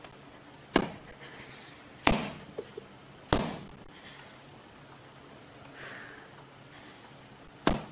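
Four sharp knocks: three in quick succession during the first three and a half seconds and one more near the end.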